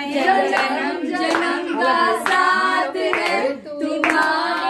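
A group of voices singing together, women and children among them, with hands clapping along.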